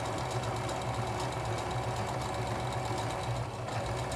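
Electric sewing machine running steadily, stitching around a fabric appliqué, with an even rapid stitching rhythm; it slows briefly about three and a half seconds in.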